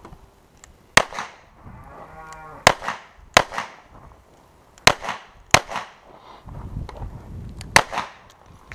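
Six handgun shots fired at a steady practical-shooting pace, in pairs and singles, each a sharp crack with a short echo.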